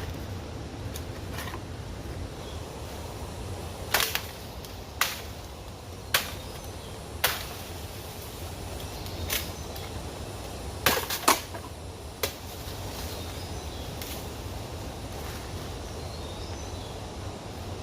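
About ten sharp cracks or knocks at irregular intervals, with a quick cluster of three about eleven seconds in, over steady low background noise.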